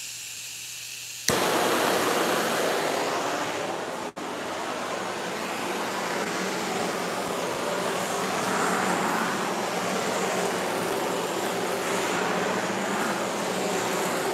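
Handheld propane torch with a flame spreader tip, run over a fresh coat of epoxy resin. A soft gas hiss, then it lights with a sharp click about a second in and burns with a loud, steady rushing noise that drops out for an instant around four seconds in.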